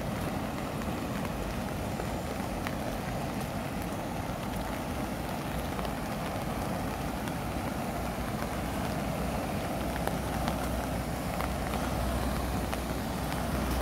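Steady rush of a swollen, fast-flowing river in flood, with rain falling. A low rumble grows stronger near the end.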